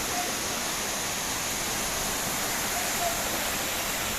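Heavy rain pouring down, with rainwater rushing; a steady, even hiss.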